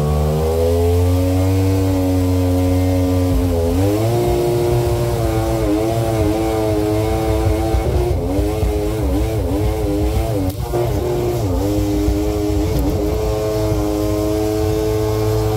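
Mini jetboat's two-cylinder two-stroke engine running hard. Its pitch climbs in the first two seconds, then dips and recovers again and again through the middle, and holds steady near the end.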